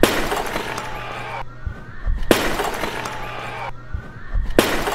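A clay jar is thrown down onto a hard stage floor and shatters with a crash, followed by about a second of pieces clattering and skittering across the floor. This happens three times: at the start, a little over two seconds in, and near the end.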